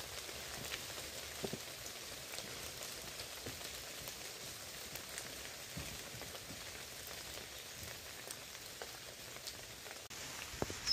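Steady hiss of light rain falling, with faint scattered drops ticking.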